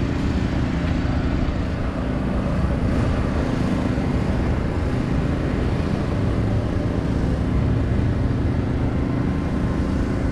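A vehicle engine running steadily at idle, an even low rumble with no change in speed.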